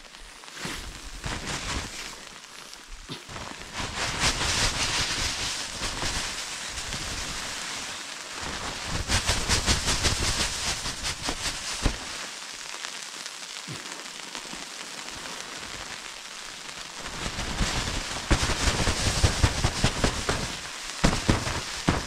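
Dry, wind-driven snow hissing and pattering against nylon tent fabric and the microphone, swelling in gusts, strongest about nine to twelve seconds in and again near the end.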